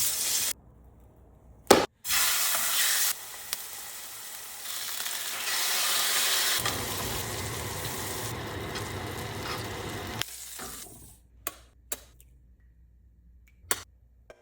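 Food sizzling and frying in a pan, the hiss starting and stopping abruptly several times, louder in places. Near the end the sizzling stops and a few sharp knocks or clicks follow.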